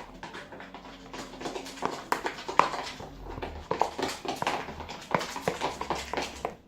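Slime mixture of craft glue and shaving foam being stirred, giving irregular wet clicks and knocks.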